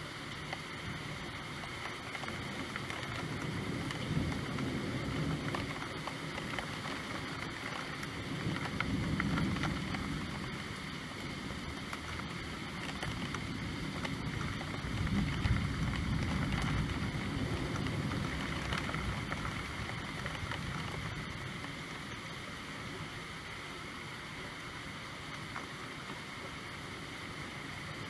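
Steady rain falling, a constant hiss, with a low rumble that swells and fades three times.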